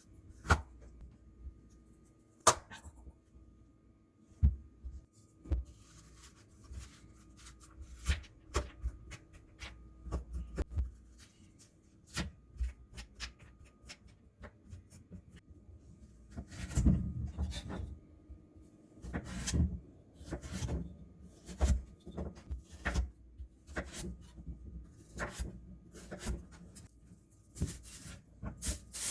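Kitchen food-prep handling sounds: scattered knocks, taps and clicks of utensils, dishes and containers set down and moved on a counter, busier in a few short stretches, over a faint steady hum.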